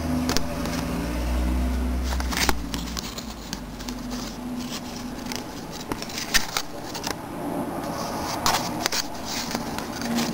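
Rustling of a cardstock card and yarn handled close by as the yarn is woven through the web, with scattered light taps and clicks and a low handling rumble in the first few seconds.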